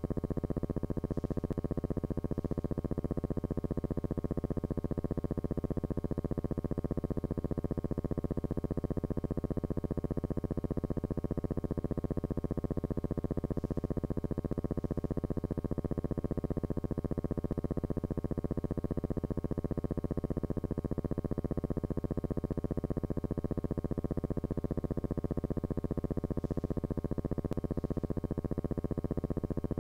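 Steady, low-pitched electrical buzz that does not change: hum on the soundtrack of a silent film transfer, not sound from the aircraft.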